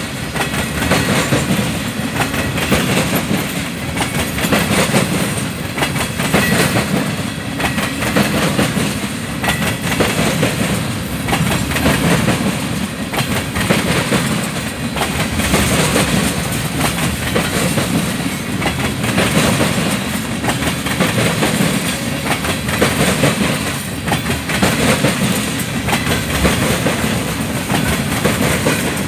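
Railroad tank cars of a freight oil train rolling past, their steel wheels clacking and rattling over the rails in a continuous run of clicks. A low rumble swells and eases every couple of seconds as car after car goes by.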